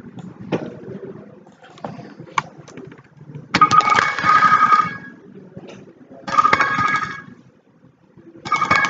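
Phone ringtone played by a home-built Android alarm clock app as its alarm goes off. It comes in three bursts of ringing, about a second each, the first about three and a half seconds in, after low room noise with a few faint clicks.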